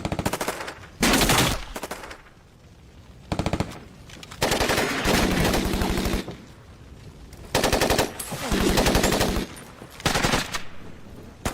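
Bursts of automatic gunfire, about seven in all, each a rapid string of shots. The longest lasts nearly two seconds, and the bursts are separated by short pauses.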